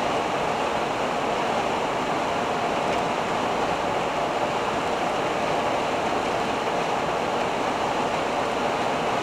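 Steady road and wind noise of a 1985 Hobby 600 motorhome on a Fiat Ducato base cruising at about 86 km/h, an even rushing hiss at constant level.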